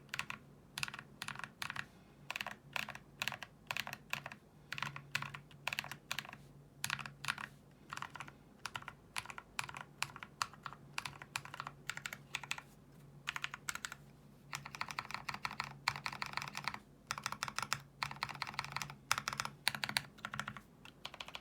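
Typing on a custom E8.5 mechanical keyboard with Tribosys-lubed YOK Holy Panda tactile switches, a polycarbonate plate and GMK keycaps. Keystrokes come in bursts, with two long runs of faster, denser typing in the second half.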